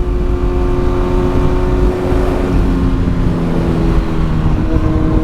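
2018 Kawasaki Z900's inline-four engine running at steady revs while riding, with the engine note shifting slightly midway. Heavy wind rumble on the microphone.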